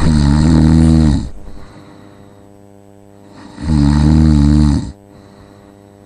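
A person snoring: two loud snores about three and a half seconds apart, each lasting just over a second.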